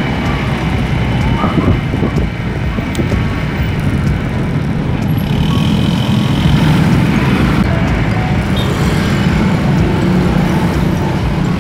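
Steady engine and road noise from a motor scooter riding in city traffic, with wind rushing over the microphone.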